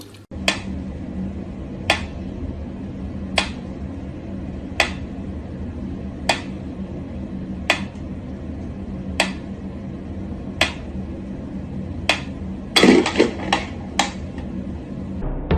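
Sharp taps or knocks at a steady pace, about one every second and a half, over a low steady hum, with a quick flurry of several taps near the end.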